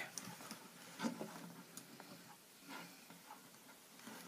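Faint, irregular light clicks and taps of wooden pencils and rubber bands being handled, the most distinct click about a second in.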